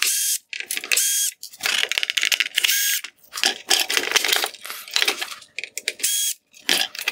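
Cordless drill-driver running in several short bursts of whine to back out T15 Torx screws from a plastic headlight housing, with rapid clicking and rattling of the screws and plastic in between.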